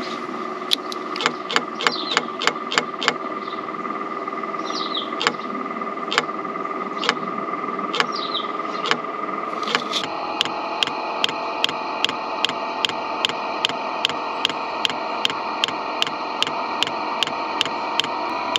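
Happybuy/Vevor Chinese diesel heater running under the van, its fuel dosing pump ticking over the steady hum of the heater's blower. About ten seconds in the heater picks up: the ticks become an even, quicker beat of about two a second, and the running note drops and deepens as it starts firing after the fuel pump was re-angled.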